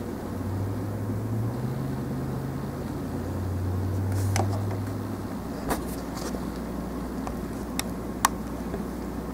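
A low, steady background hum that shifts in pitch and swells around the middle, with a few light, sharp clicks from the second half on, as the hard plastic torso of a model kit is handled and set down on a table.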